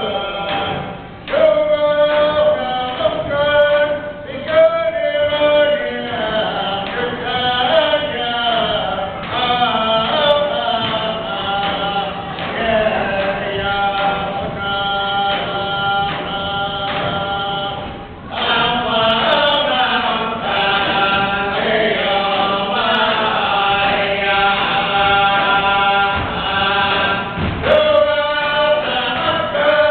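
Yup'ik dance song: men's voices chanting together over steady beats of Yup'ik frame drums struck with thin sticks. The singing and drumming briefly drop out about eighteen seconds in, then start again.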